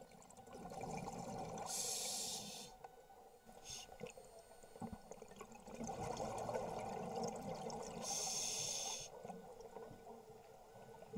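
A scuba diver breathing through a regulator underwater: two slow breath cycles, each with a bubbling exhalation and a sharp hiss from the regulator lasting about a second, the hisses about two seconds in and again around eight seconds.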